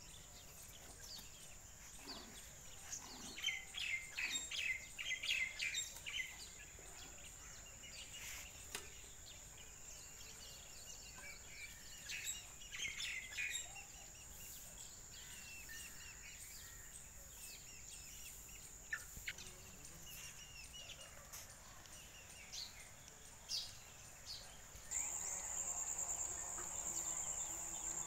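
Birds chirping in quick runs a few seconds in and now and then after, over a steady high-pitched insect buzz that gets louder near the end.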